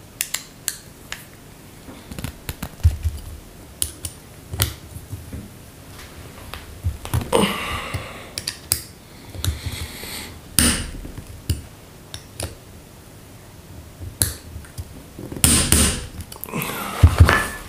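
Irregular clicks, taps and knocks of small metal parts being handled and fitted by hand while an LPG gas reducer is reassembled, with a few short scraping and rustling stretches.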